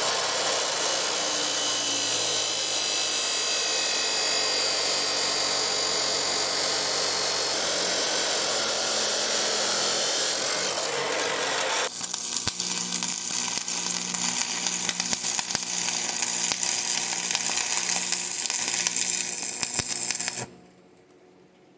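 An abrasive wheel, such as an angle grinder, running hard on steel for about twelve seconds: a steady, loud hiss with a slowly drifting whine. It is followed by about eight seconds of welder crackle over a low buzz, which cuts off shortly before the end.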